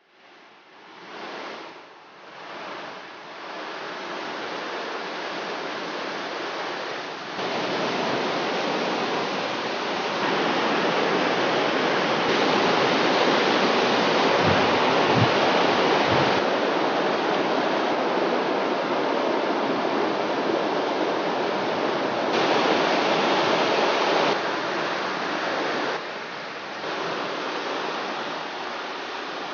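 Whitewater rushing through river rapids and falls, a dense steady noise of water. It builds up over the first few seconds, then steps louder and softer several times.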